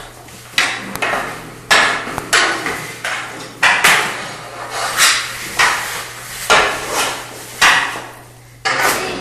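A toddler's hockey stick banging repeatedly, about nine or ten hard, irregular knocks roughly a second apart, each echoing briefly in a bare concrete-floored room.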